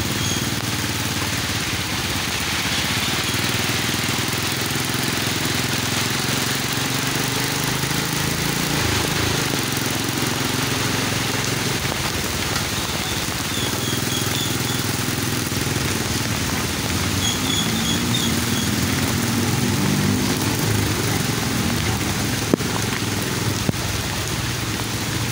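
A small motorcycle engine running steadily while riding along wet, flooded streets, its note drifting up and down a little, over the constant hiss of heavy rain.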